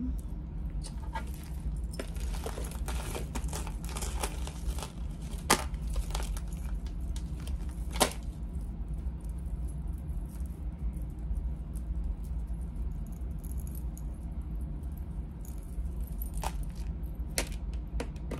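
Small metal costume-jewelry pieces clinking and rattling as they are handled and sorted by hand. There is a flurry of light clicks at first, two sharper clicks a few seconds apart, and a few more clicks near the end, over a steady low hum.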